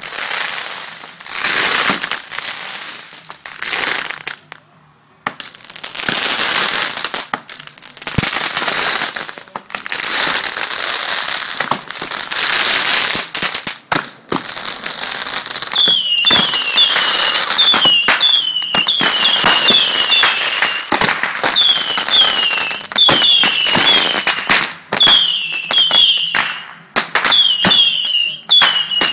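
Backyard consumer fireworks going off: long hissing, crackling bursts broken by many sharp pops. About halfway through, a fast run of short, falling whistles starts, several a second, mixed with more pops.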